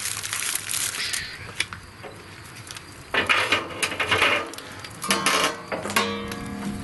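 Metal clinks and scrapes, with foil crinkling, as a foil-wrapped pork butt is set down on the grate inside a steel Pit Barrel Cooker between its hanging rods. Near the end comes a short, pitched metal scrape as the barrel's lid is picked up.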